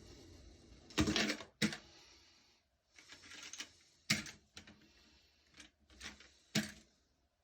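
Irregular clicks and knocks with short bursts of rustling in between, from hard plastic toilet-tank parts being handled and fitted inside the tank.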